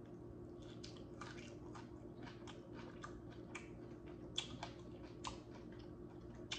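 Close-up chewing of a sauce-coated broccoli floret: soft wet crunches and mouth clicks at an irregular pace, several a second, with a few louder ones in the second half, over a faint steady hum.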